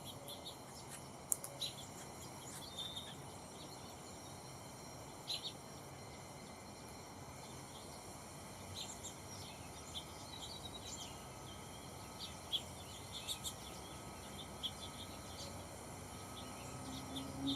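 Small birds giving short, high chirps and call notes at irregular moments over a steady outdoor hiss.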